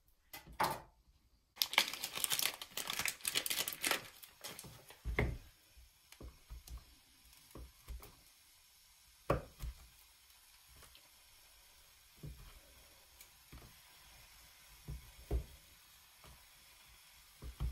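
A loud crinkling, tearing rustle for a couple of seconds near the start, then scattered sharp knocks of a kitchen knife cutting a block of vegan cheddar on a wooden chopping board.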